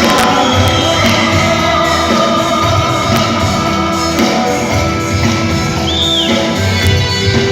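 Live band playing an instrumental passage of a Nepali pop song, with sustained instrument tones over a steady beat.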